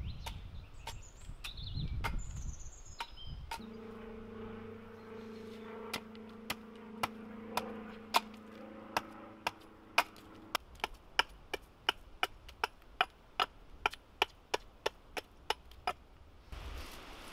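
Carpenter's axe hewing a split ash billet on a chopping stump: a long run of sharp wooden chops, coming faster in the second half at about three a second, as the billet is roughed square. A low steady tone sits under the chops for several seconds in the middle.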